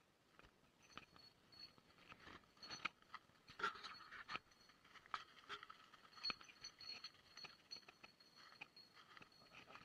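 Footsteps crunching and rustling through dry leaf litter, irregular crackles that are loudest around the middle, with faint steady high chirping in the background.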